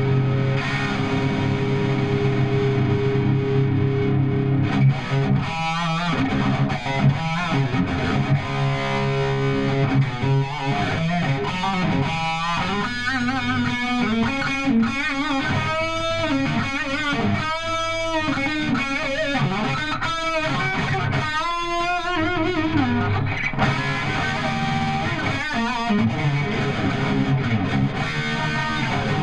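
Electric guitar played through a Cameron Amplification tube amp head with a distorted tone. Held low notes at the start give way to a single-note lead line with bent notes and wide vibrato, busiest through the middle.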